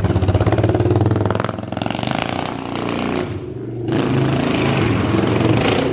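Quad bike (ATV) engine with a straight-pipe exhaust, revving loudly as it is ridden. The throttle eases off about a second and a half in, then opens up again a little before the four-second mark.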